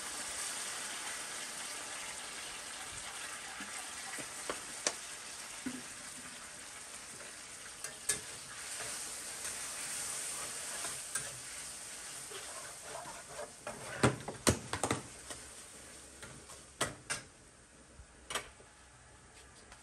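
Something frying in a wok on a portable gas stove, a steady sizzle that slowly fades. A metal spatula stirs and clinks against the pan, with a few sharp clinks, loudest about two-thirds of the way through.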